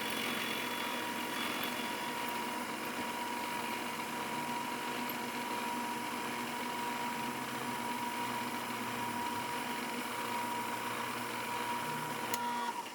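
Bridgeport milling machine running steadily, its cutter taking a light cleanup pass across the saw-cut face of a metal plate: a constant whine over cutting noise, which stops abruptly just before the end.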